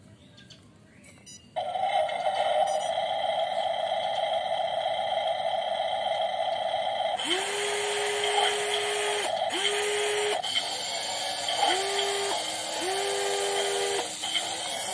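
Electric motors of a WLtoys 16800 RC metal excavator whining as its boom, arm and bucket move. A steady whine starts suddenly about a second and a half in. From about seven seconds there is a string of shorter motor runs, each rising in pitch as it starts and stopping abruptly.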